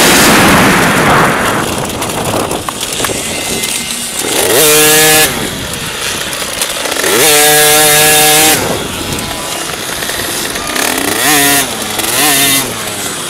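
Dirt bike engine heard from on board: high revs dropping off at the start, then two throttle bursts, each held at one pitch for about a second, and two short blips of the throttle near the end.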